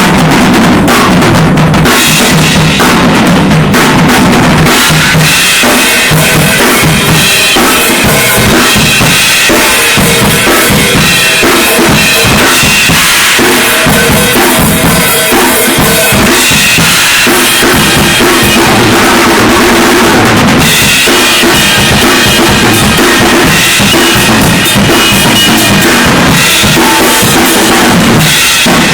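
Drum kit played continuously in a full groove, with bass drum, snare and cymbals, during a studio sound check.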